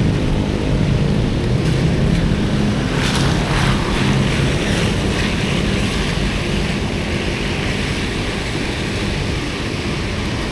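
Wind buffeting the action camera's microphone while cycling, with a steady hiss of bicycle tyres on a wet road.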